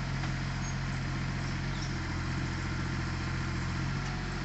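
Excavator's diesel engine running steadily with an even low hum, holding the same speed throughout.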